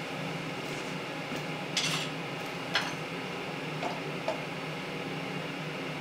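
A few light metallic clinks of metal parts or tools being handled: a short rattle about two seconds in, a sharp clink near three seconds, and two lighter ones around four seconds, over a steady background hum.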